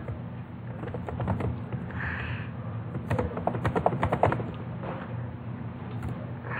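Computer keyboard keys clicking as text is typed, in quick runs about a second in and again from three to four seconds in, over a low steady hum. A short hiss comes about two seconds in.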